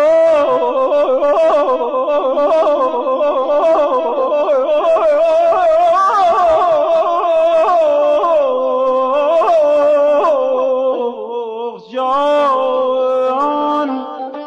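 Male singer's wordless tahrir in Persian classical avaz, mode Bayat-e Zand: long held phrases broken by rapid yodel-like trills, with a short breath about twelve seconds in, then steadier held notes.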